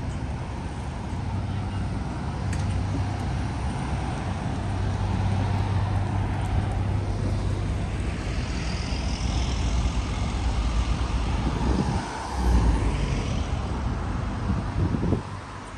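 City road traffic: a steady low engine hum with vehicles passing by.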